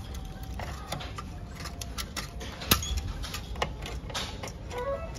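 Irregular small plastic clicks and taps as green plug-in terminal-block connectors are pulled off the back of a room pressure monitor and its wires are pushed back into the wall box. The sharpest click comes a little past the middle.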